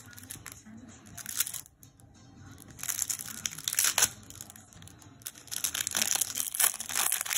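Trading card pack wrapper crinkling and tearing as it is opened, in bursts of crackling a second or two long.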